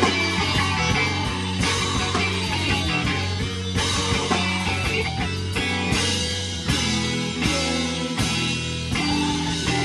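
Rock band playing live: guitar and drum kit, with sustained low notes and regular drum and cymbal hits.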